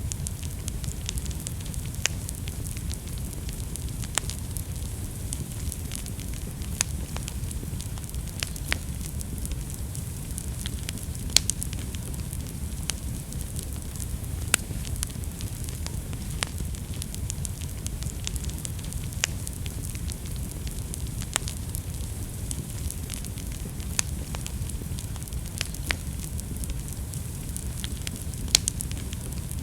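Wood fire burning in a fireplace: a steady low rumble and hiss of flames with sharp crackles and pops at irregular moments, a few louder snaps among them.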